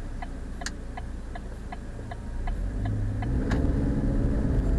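Car turn signal ticking about three times a second over the low hum of the engine, heard inside the cabin. The ticking stops near the end and the engine note rises as the car accelerates.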